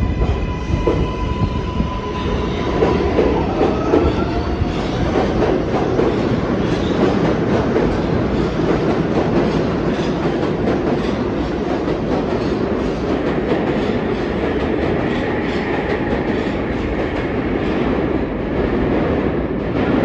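New York City subway 4 train pulling out of the station and gathering speed: a steady heavy rumble with the wheels clacking over the rail joints and a faint rising motor whine in the first few seconds.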